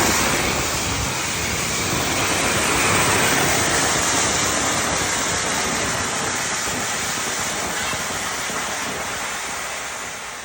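Large jar-shaped fountain firework spraying sparks with a loud, steady hiss that slowly fades toward the end.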